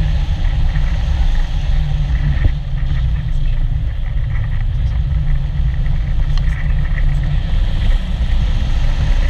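Freefall air rushing over the camera microphone during a tandem skydive under a drogue chute: a loud, steady low rumble of wind buffeting.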